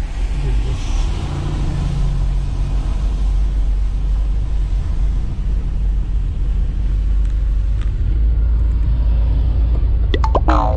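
Steady low rumble of road and engine noise inside a moving car's cabin. A brief pitched sound with a few clicks comes near the end.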